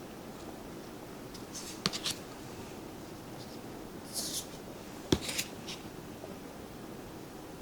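Tarot cards being handled: a few sharp taps of card stock being set down and short papery rustles as cards slide against one another, about two seconds in and again around four to five seconds in.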